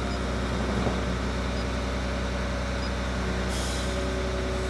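Steady low hum of an engine running, with several steady low tones and a brief soft hiss about three and a half seconds in.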